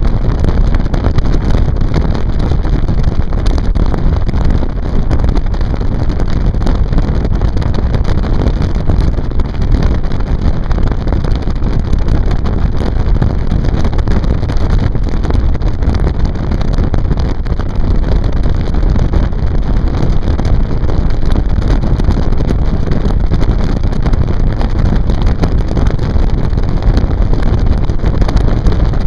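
Motorboat under way: a loud, steady rumble of motor and water, with wind buffeting the microphone.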